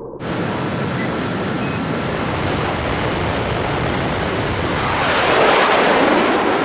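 Aircraft engine sound effect: a steady rushing noise with a thin high whine, swelling louder near the end like a pass-by.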